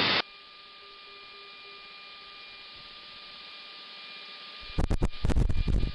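Steady hiss and hum of a cockpit intercom/radio audio feed, with two faint steady tones running through it. About five seconds in, a loud, choppy burst of noise on the channel lasts roughly a second.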